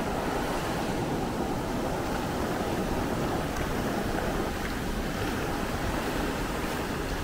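Atlantic Ocean surf breaking and washing up the beach, a steady rush of noise, with some wind on the microphone.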